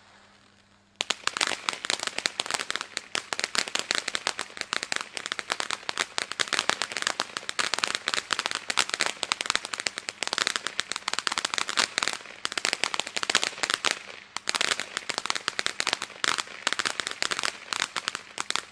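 Weco Color Engine firework fountain burning: a faint hiss, then about a second in a dense crackle of rapid, irregular pops from its crackling effect, which stops at the very end.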